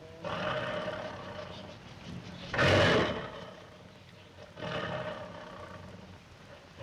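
Lion roaring and growling in three separate bouts, the loudest a short, harsh roar about two and a half seconds in.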